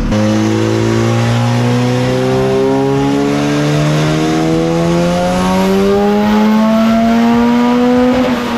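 Turbocharged 1.6-litre Honda D16 four-cylinder in a Civic making a pull on a chassis dyno: engine revs climb steadily under load for about eight seconds, then drop near the end.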